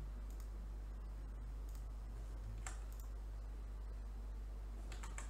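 A handful of light computer-mouse clicks, spaced about a second apart, over a steady low electrical hum.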